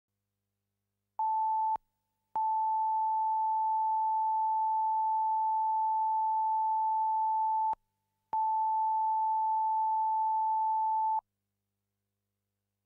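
Broadcast line-up tone on a BBC programme's countdown-clock leader: a steady pure tone. It sounds once briefly, then for about five seconds, then for about three seconds, with short breaks between, and stops about eleven seconds in.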